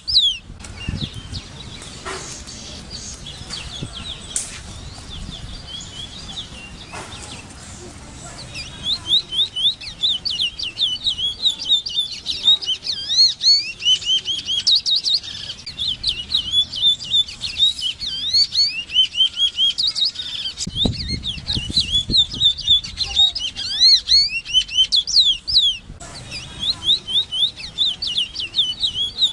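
Large-billed seed-finch singing: a long, fast, continuous warble of short sweeping notes. It begins after a few scattered notes, about a third of the way in, and breaks off briefly near the end before resuming.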